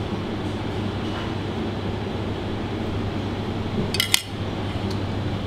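A few quick clinks of a metal utensil or pot against kitchenware about four seconds in, over a steady hum of kitchen ventilation.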